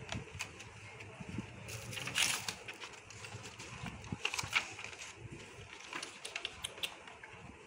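A sheet of white paper rustling and crinkling as it is handled and pressed onto a glue-coated cardboard box lid, loudest about two seconds in and again around four and a half seconds in.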